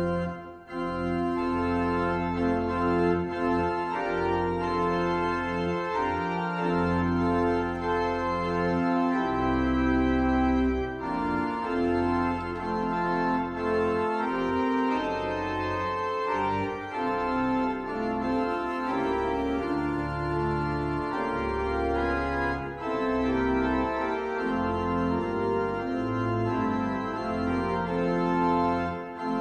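Organ playing a hymn tune in slow, sustained chords over a moving bass line.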